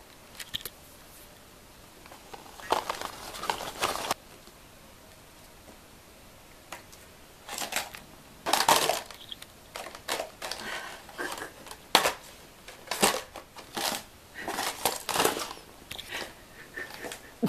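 Paper and card rustling and crinkling in irregular bursts as a cat paws and bites at a paper beckoning-cat card, with a few sharp taps partway through.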